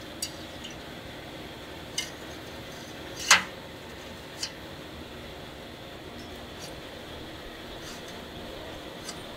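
Sharp metallic clinks of a steel rod knocking against a steel barrel oven as a raw chicken is hung inside it: about seven scattered clinks, the loudest and ringing about three seconds in, over steady background noise.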